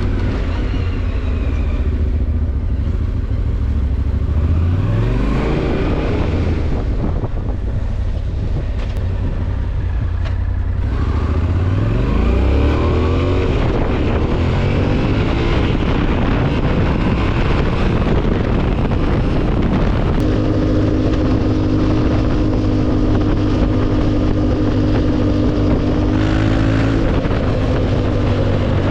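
Yamaha Ténéré 700's 689 cc parallel-twin engine through an Akrapovič exhaust, heard while riding: it pulls hard twice with the pitch climbing steeply, about four seconds in and again about twelve seconds in, then runs at a steady pitch from about twenty seconds in.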